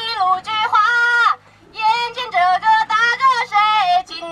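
A woman singing a Chinese folk song through a handheld megaphone, in long held melodic phrases with a brief break about a second and a half in.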